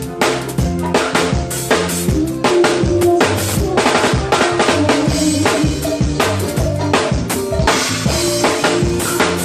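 Live band playing an instrumental groove, with the drum kit to the fore: steady bass drum, snare and rimshot hits over sustained bass and other pitched instrument lines.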